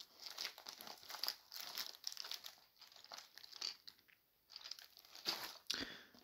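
Clear plastic wrapping crinkling and rustling as hands handle it, in irregular spurts with a short pause about four seconds in.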